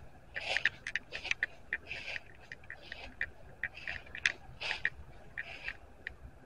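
Footsteps crunching through a thick layer of dry fallen leaves at a steady walking pace, each step a short rustling crunch with small crackles between steps.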